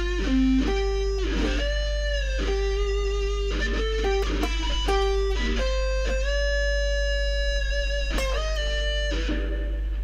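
Electric guitar through a small amp playing a slow single-note melody, the first digits of pi mapped to notes, with held notes and string bends that glide up and down in pitch. A steady low hum runs underneath.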